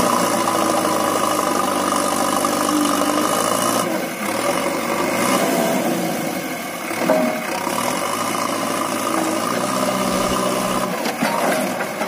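JCB 3DX backhoe loader's diesel engine running as the machine works in mud. Its engine note shifts around four seconds in and again about seven seconds in, with a brief louder moment at the second change.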